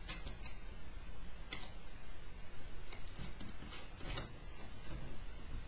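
Small, irregular clicks and scrapes of hand-fitted hardware: a flange nut being turned by hand onto an M3 screw on an acrylic belt tensioner. The sharpest clicks come about a second and a half and four seconds in.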